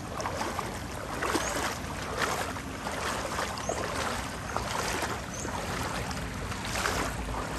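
Floodwater splashing and sloshing in a regular rhythm, about one splash a second.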